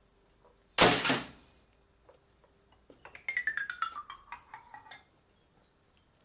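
Foley sound effects: a sudden loud crash with a bright clinking ring about a second in, then a quick falling run of tinkling notes that fades out.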